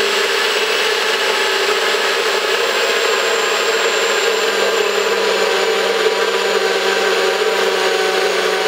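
Nutribullet personal blender motor running at a steady, unchanging pitch, blending a smoothie that is already smooth, with no crunching of ice left. It runs through without a break.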